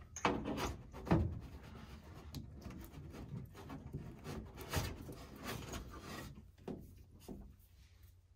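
Hands handling wiring and plastic connectors under a car's dashboard: wires rubbing and rustling, with scattered clicks and knocks as a harness connector is plugged in. The handling thins out about six seconds in.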